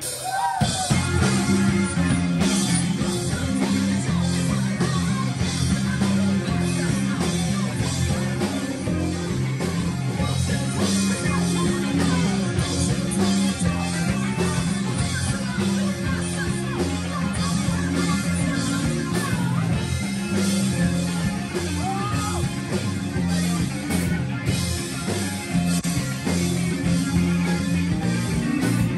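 Rock band playing, with electric guitar over a moving bass line.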